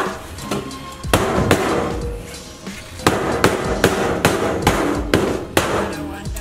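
Mallet blows on a riveted sheet-metal interior wall panel of a school bus, knocking it loose from the frame: roughly ten sharp metallic bangs in irregular quick spells, over background music.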